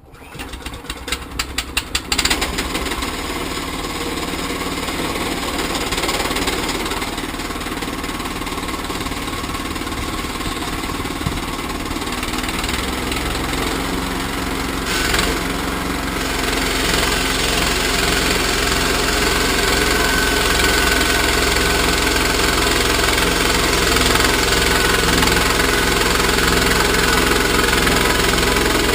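Small gasoline engine of a portable band sawmill pull-started with a quick run of cranking strokes. It catches about two seconds in and then runs steadily, growing louder past the middle.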